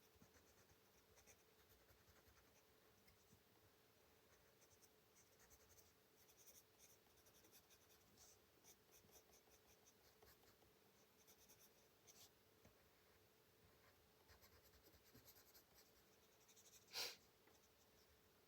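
Faint scratching of a Prismacolor colored pencil shading on coloring-book paper in irregular strokes, with one brief louder noise near the end.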